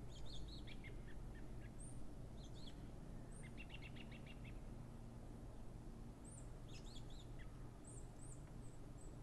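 Small songbirds chirping: scattered short high calls, a quick trill of about eight notes about three and a half seconds in, and thin high chirps again from about six seconds on, over a faint low background rumble.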